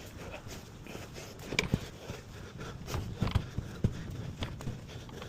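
Scattered knocks and thumps, like footsteps and objects being handled on a hard floor, the strongest about a second and a half in and around three to four seconds in.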